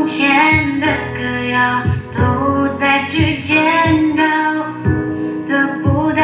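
Music: a song with a female voice singing over instrumental accompaniment with a low beat.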